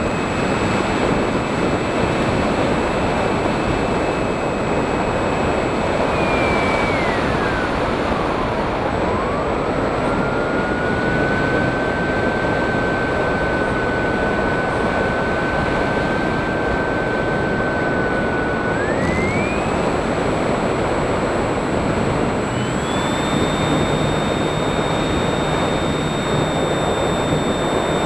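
FPV drone's electric motors and propellers whining under heavy rushing air noise. The whine holds steady, drops sharply about a third of the way in, settles at a lower pitch, then climbs again in two steps as the throttle changes.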